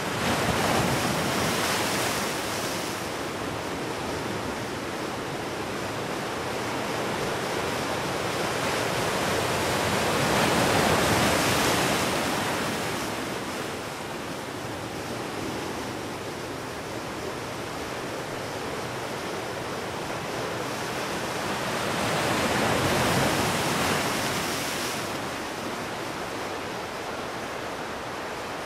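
Ocean surf washing in on the shore as a steady rushing hiss. It swells louder three times, about ten to twelve seconds apart, as waves break.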